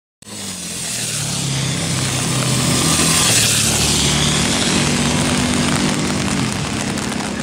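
A vehicle passing: a rushing noise that swells to its loudest about three seconds in and slowly eases off, over a low hum whose pitch steps up and down.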